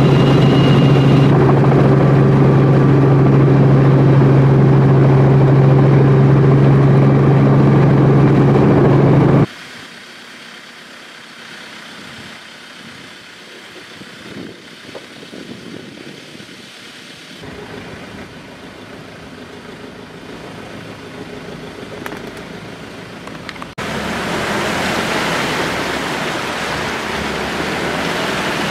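Steady, loud engine-and-rotor drone heard inside a small helicopter's cabin, which cuts off abruptly about nine seconds in. An open safari vehicle then idles and creeps along quietly. Near the end, a louder rush of engine and wind noise follows as it drives along a dirt track.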